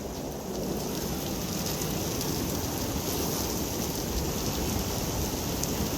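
Heavy rain pouring and strong wind as an EF2 tornado passes close by, heard as a steady, unbroken rushing noise with a deep low rumble.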